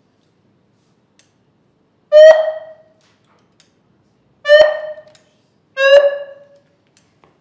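Handheld megaphone sounding three short, loud tones a second or two apart as its buttons are tried out, each a clear note that starts sharply and fades within about half a second.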